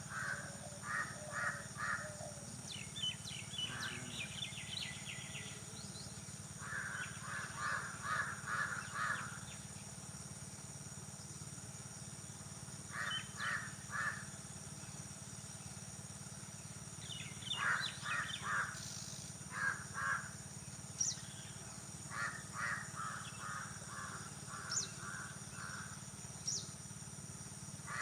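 Crows cawing in runs of three to six quick caws, the runs coming every few seconds, with smaller birds chirping higher up in between.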